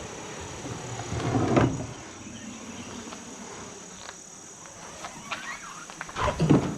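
Insects, likely crickets, trilling steadily in the background. Two louder scraping handling noises come through, one about a second and a half in and one near the end.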